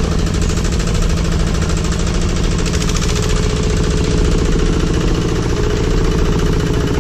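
Tractor engine running steadily with a fast, even beat, pulling a loaded passenger trailer along a rough dirt track.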